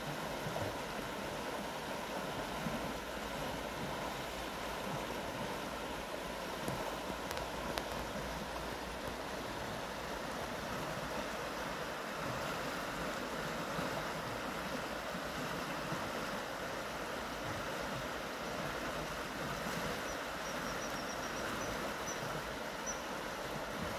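River water flowing steadily, an even rushing sound around fallen logs and over a shallow riffle.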